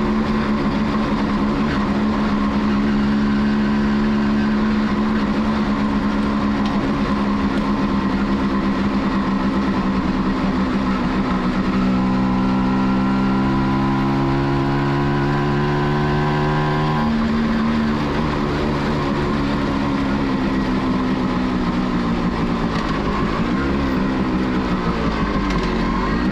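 Two-stroke single-cylinder engine of a 1989 Kawasaki B1 motorcycle running under way. About halfway through, its pitch climbs for several seconds under acceleration, then drops sharply and falls away as the bike eases off and slows. There is a brief blip of throttle near the end.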